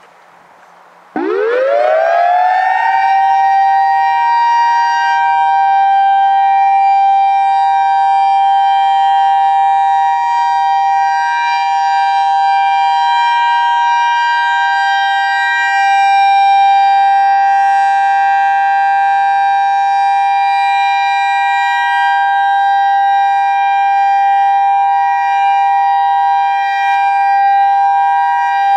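Federal Signal EOWS 612 electromechanical outdoor warning siren winding up from a low growl about a second in, then holding a steady two-note Alert tone. Its loudness swells and dips a little as it turns.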